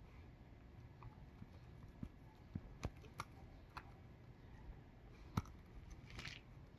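Dog pulling and chewing grass: scattered faint crunches and snaps, with a short rustling tear about six seconds in.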